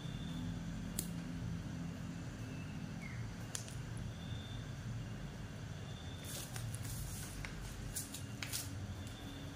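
Sharp metallic clicks and taps of small metal regulator parts and tools being handled: single clicks about one and three and a half seconds in, then a quick cluster between about six and nine seconds in, over a steady low hum.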